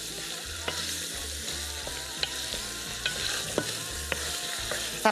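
Portions of goat meat sizzling in hot olive oil in a large pot on full heat, browning, while a wooden spatula stirs and turns them. The spatula knocks lightly against the pot a few times.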